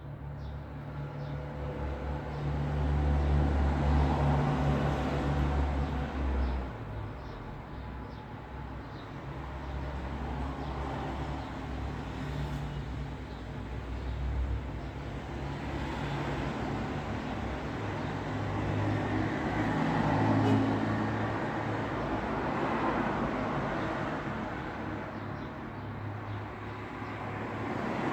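Road traffic: a continuous low rumble of engines and tyres as vehicles pass one after another, swelling loudest about four seconds in and again around twenty seconds in.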